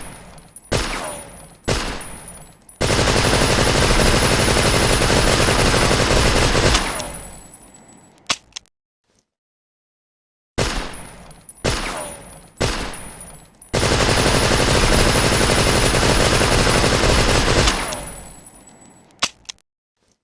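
Thompson submachine gun (Tommy gun) firing, the same sequence twice: three single shots about a second apart, then a sustained fully automatic burst of about four seconds that dies away with an echoing tail.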